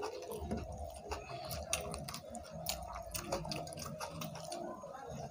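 Quiet eating sounds: fingers mixing rice and curry on plates, and chewing, heard as scattered small wet clicks and smacks.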